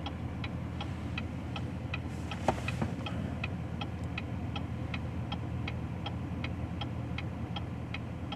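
Diesel truck idling, with a low steady hum and an even ticking about two and a half times a second.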